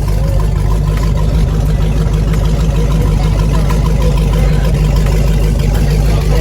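Loud car engine running steadily at idle close by, a deep, even low drone.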